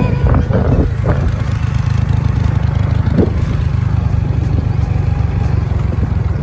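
Steady low drone of a vehicle's engine running while travelling, with a few brief fainter sounds near the start and about three seconds in.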